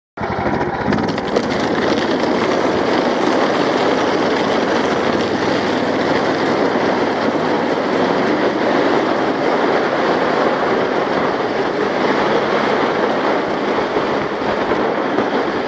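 Black plastic ice-fishing sled being towed across a frozen lake, rumbling and rattling steadily over the ice.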